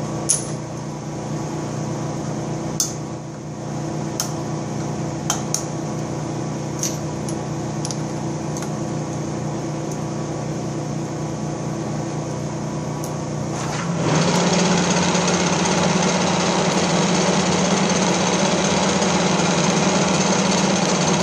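Horizontal boring machine running with a steady mechanical hum, with a few sharp clicks of tooling being handled. About 14 seconds in it turns louder and rougher as the cutter engages the cast-iron block, facing and chamfering the rear main seal bore.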